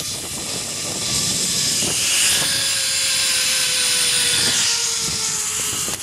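Zipline trolley pulleys running along the steel cable: a steady whine that slowly falls in pitch as the rider slows toward the landing platform, with wind rushing over the microphone.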